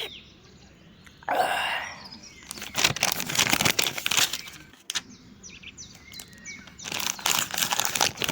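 Birds chirping and tweeting in the background, with a brief swish about a second in and two spells of crisp rustling, like newspaper pages being handled.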